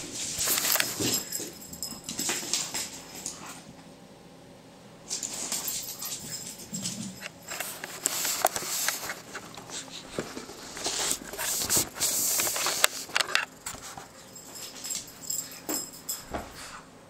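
Pug puppy playing: rustling and scratching on carpet and rugs in short irregular bursts, with a lull about four seconds in.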